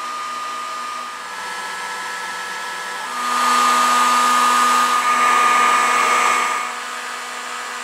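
Electric heat gun blowing steadily, a hair-dryer-like whir with a constant motor whine, louder from about three seconds in until near the end. The hot air is softening the old glue in a dowelled teak joint so that it will separate.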